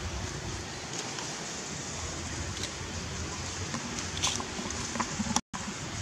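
Steady outdoor background hiss with a few faint clicks or rustles about four and five seconds in, and a short dropout near the end; no monkey calls.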